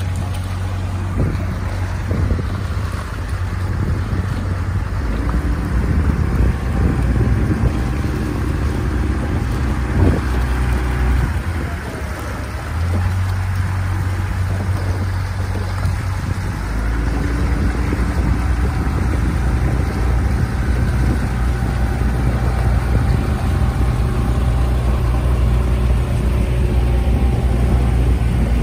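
Outboard motor of a launch running steadily at cruising speed, with water wash and wind on the microphone; the engine note shifts a couple of times.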